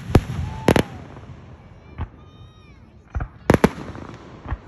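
Fireworks going off in a string of sharp bangs. Two come close together near the start, then a quick cluster of three a little past three seconds in, and one more near the end.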